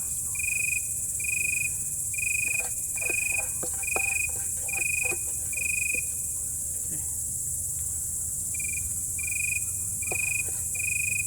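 A cricket chirping steadily in a regular rhythm of about two short high chirps a second, pausing for a couple of seconds midway, over a constant high hiss. A few faint knocks sound in the middle.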